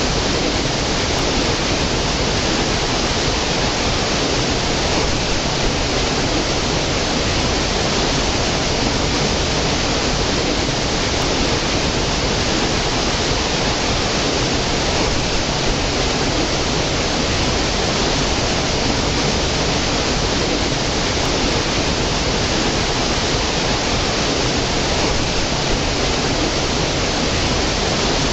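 Small stream cascading over mossy boulders into a pool: a steady, even rush of falling water.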